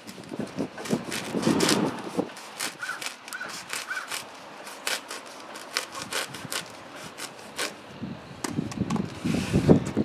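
A knife cutting into a foam pool noodle: squeaky scraping and rubbing of the foam, with scattered clicks from handling.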